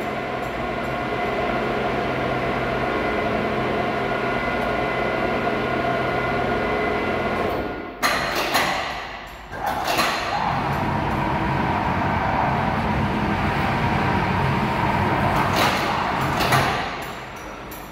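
Electric overhead crane hoist motor running steadily as it lifts a load, stopping with knocks about eight seconds in. About two seconds later the crane trolley's travel motor runs with a steady whine for about six seconds, then stops near the end.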